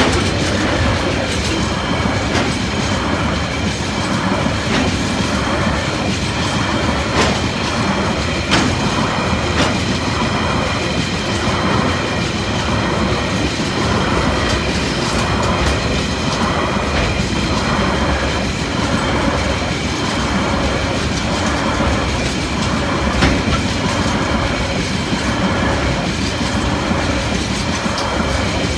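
Loaded freight container wagons rolling past at speed, their wheels clattering over the rails in a steady repeating rhythm, with a few sharp clicks and steady high tones over the top.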